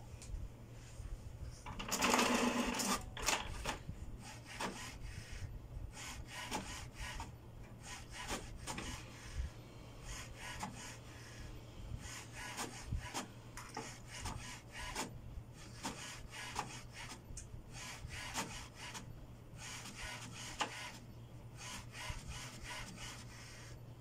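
HP Smart Tank 515 inkjet printer printing a page: a loud mechanical whir about two seconds in as a sheet is pulled in from the rear tray, then a long run of short clicks and rasping passes as the print carriage works across the page and the paper advances.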